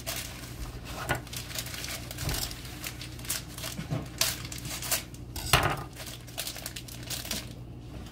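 Packaging crinkling and tearing as a pasta box is opened by hand, mixed with scattered light clinks and knocks of kitchen things; the loudest knock comes about five and a half seconds in.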